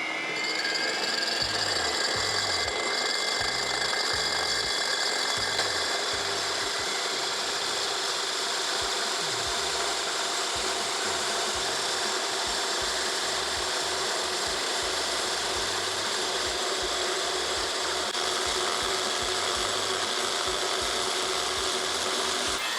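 A 2400-watt dry/wet diamond core drill boring a hole through concrete: the motor whines steadily while the diamond bit grinds through the wall.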